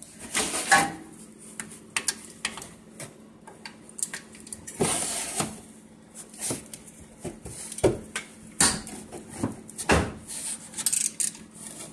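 Scattered metallic clinks and knocks of a wrench being fitted onto the brake caliper's 14 mm bolts and knocking against the caliper, with hand-handling rustle between.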